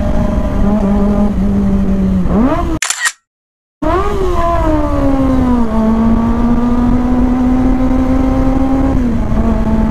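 Kawasaki ZX25R's 250 cc inline-four engine running loud and steady. About two seconds in its pitch rises, then the sound cuts out completely for about a second. It comes back higher, eases down and holds steady, then dips slightly near the end.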